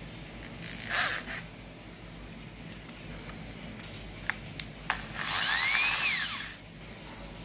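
Electric hand drill fitted with a freshly sharpened twist bit: a short burst about a second in, three sharp clicks as the keyless chuck is tightened, then the motor briefly spins up and runs down again.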